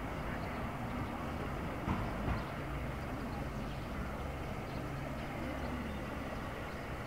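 Steady low rumble of a distant engine, with a low hum setting in about two and a half seconds in and two soft knocks just before it.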